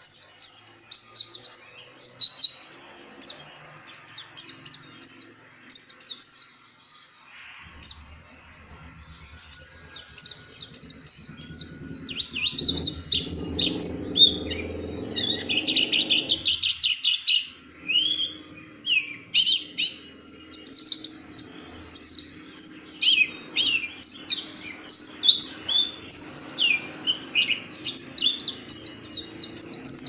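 Oriental white-eye singing a long, fast, high-pitched song: quick runs of sharp chirps and rapid trills, with only brief breaks between phrases.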